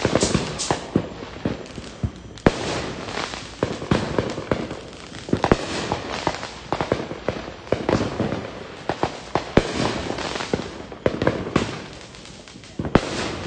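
Many fireworks going off at once: a continuous crackle of sharp pops and bangs, several a second, easing slightly near the end.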